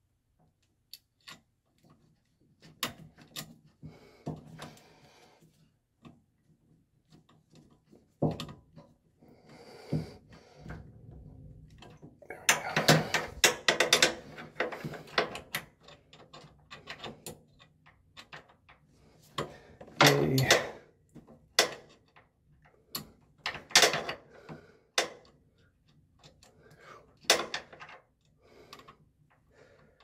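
Irregular clicks, knocks and rattles of hands working the plastic wiring harness and connectors at a washing machine's drive motor, with louder clattering spells about twelve seconds in and again about twenty seconds in.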